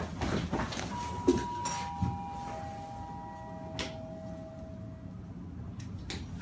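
A three-note chime stepping down in pitch, each note held and fading, over a steady low rumble. Scattered knocks and clicks, the loudest a sharp knock just before the second note.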